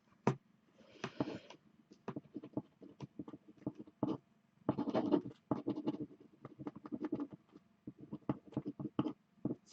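Irregular light clicks and taps with brief rustling, about a second in and again around five seconds in.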